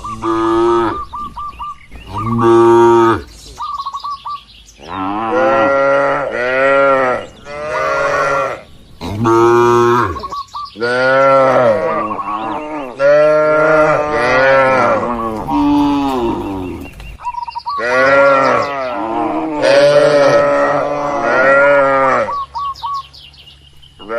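Cattle mooing: a run of long, loud moos rising and falling in pitch, several overlapping as more than one cow calls at once.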